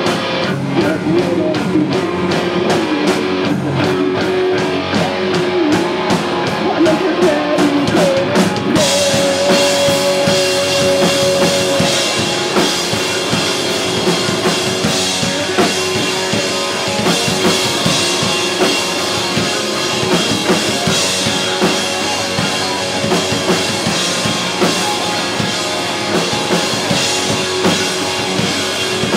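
Live pop-punk rock band playing loudly: drum kit, electric guitars and bass. About nine seconds in the band comes in fuller and brighter, with a held guitar note over the crashing drums.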